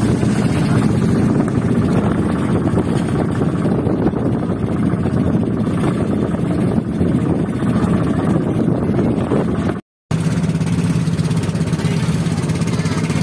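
Pumpboat (outrigger bangka) engine running steadily while the boat is under way, over a rush of wind and water. The sound cuts out for a moment about ten seconds in, then the engine drone carries on with a steadier low hum.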